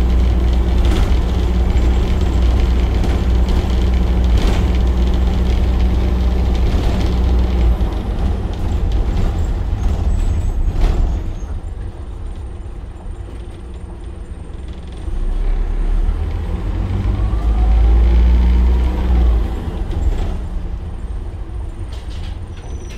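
Optare Solo single-deck bus engine heard from inside the passenger saloon, pulling hard up a steep hill with a heavy low drone. About eleven seconds in there is a short sharp sound and the engine eases off. It pulls loudly again from about fifteen to twenty seconds, then eases once more.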